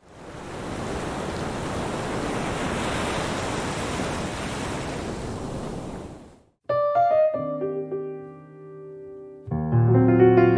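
Ocean surf, a steady wash of waves that fades in and then fades out over about six seconds. After a short gap, piano music begins.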